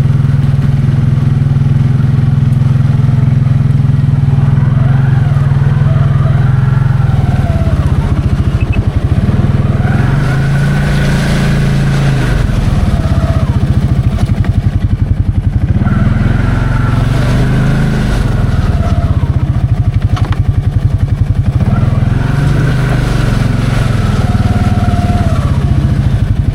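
Can-Am 700 XMR ATV engine working in deep, sandy mud: running steadily at first, then revving up and easing off three times, each surge a few seconds long, as the tires spin and dig in.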